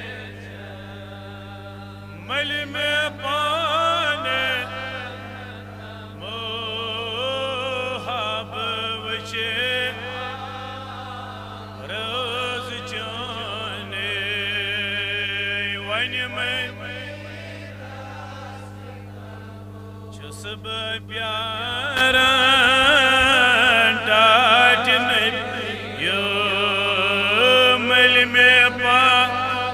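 A man's solo voice reciting a Kashmiri naat into a microphone. He sings long, ornamented phrases with a wavering vibrato, separated by short pauses, and grows louder about two-thirds of the way through. A steady low hum runs underneath.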